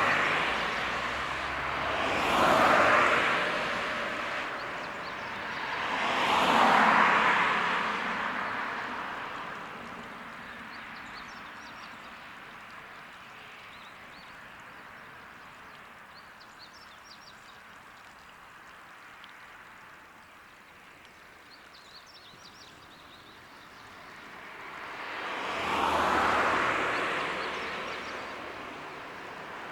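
Road vehicles passing one after another, each pass a short swell of tyre and engine noise: three close together at the start and another near the end. In the quieter stretch between, birds chirp faintly.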